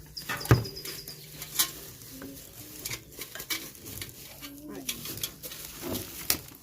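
Metal grill parts and packaging being handled while unboxing, with irregular clinks and knocks; the loudest knock comes about half a second in.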